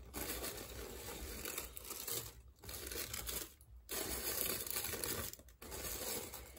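Tissue paper rustling and crinkling as it is unfolded and pulled back by hand, in several spells broken by brief pauses.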